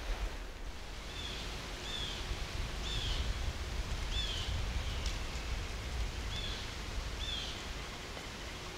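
A small songbird giving short, high chirps about once a second, over a steady low rumble and faint rustle of the woods.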